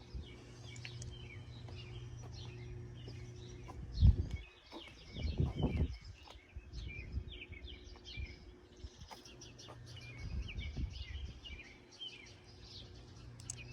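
Small birds chirping and twittering in a steady stream of short calls over a low background hum. A low thump about four seconds in, and another about a second and a half later.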